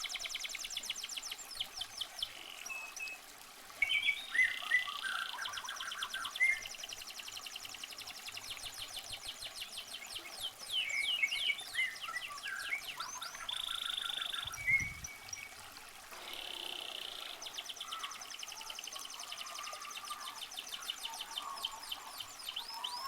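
Birds chirping, with rapid runs of quick, high sweeping notes and short shrill trills overlapping throughout.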